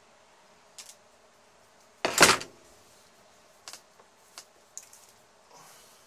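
Insulation being stripped off a copper wire with a small hand tool: a few light clicks and scrapes, and one louder, harsher scrape about two seconds in that lasts about half a second.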